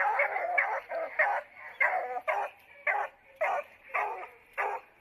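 Coonhound barking repeatedly, about two barks a second.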